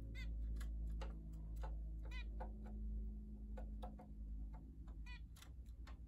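Zebra finch calling: three short calls about two to three seconds apart, among many sharp little ticks, over a low steady hum.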